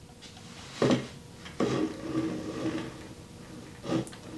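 A Vredeborch Felica box camera handled on a wooden desk: a sharp knock about a second in, scraping and rubbing as it is shifted across the wood, and another knock near the end.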